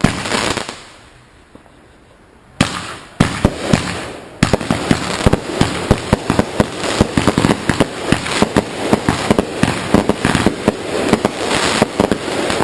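Consumer fireworks going off: a short hissing burst, a pause of about two seconds, then three sharp bangs. From about four seconds in, a rapid, irregular string of many small bangs, like a string of firecrackers, runs on without a break.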